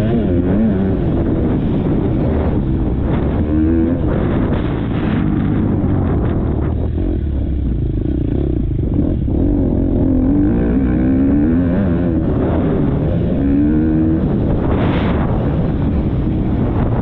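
Motocross bike engine revving up and dropping back again and again as it is ridden hard round the track, heard close up from a helmet-mounted camera.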